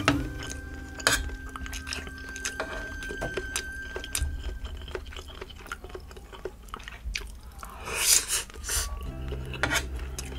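Close-up chewing of shrimp fried rice and luncheon meat, with wet mouth sounds and short sharp clicks of a spoon and fork against the tray.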